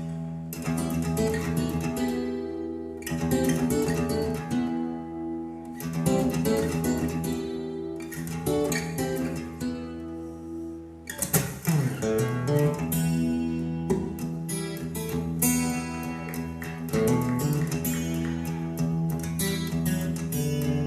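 Instrumental opening of a song, with acoustic guitar strumming and plucking over a steady bass, played back through Dali Spektor 2 bookshelf loudspeakers as an audio test.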